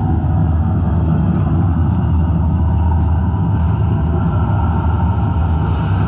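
Steady low rumble of running machinery, even and unbroken.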